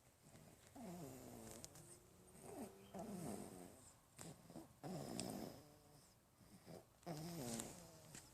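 A sleeping baby snoring faintly: several short snores at irregular intervals, most a voiced tone sliding down in pitch, one a noisier, raspy breath.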